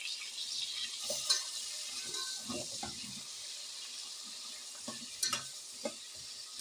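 Cubed potatoes sizzling in hot oil with fried onions, stirred with a slotted spoon that clinks against the metal pot a few times, mostly around five seconds in.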